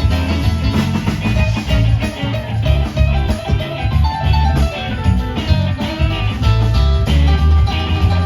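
Live rock band playing an instrumental break between sung lines: a guitar melody over bass and drums.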